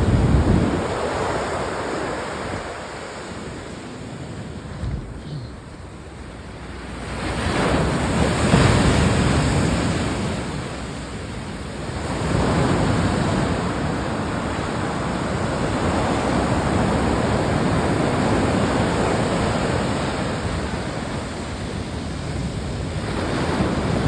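Ocean surf breaking and washing up a sandy beach, with wind buffeting the microphone. It swells louder as waves break about eight seconds in and again around twelve seconds.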